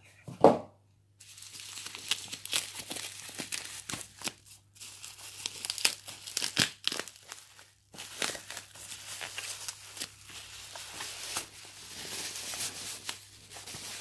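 Plastic bubble wrap being pulled off a box by hand: a dense, crackly crinkling full of small clicks, with a couple of brief pauses. It comes after a short thump just after the start.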